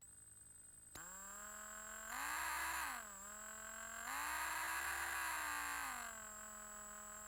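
Electric drill motor switching on about a second in and running with a steady whine, then speeding up twice to a higher, louder pitch, around two seconds in and again from about four to six seconds, each time dropping back to its lower running speed.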